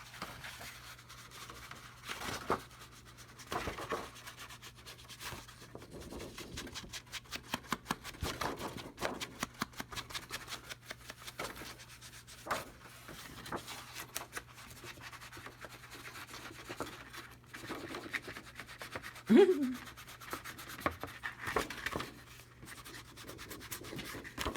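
Repeated short rubbing strokes on paper as the edges of a journal page are worked by hand, coming in quick runs with pauses between. A brief louder pitched sound stands out about twenty seconds in.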